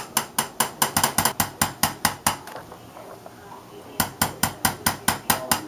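Spring-loaded low-force chiropractic adjusting instrument firing sharp clicks, about four to six a second, as it is worked up and down the spine. It fires in two runs with a pause of about a second and a half between them.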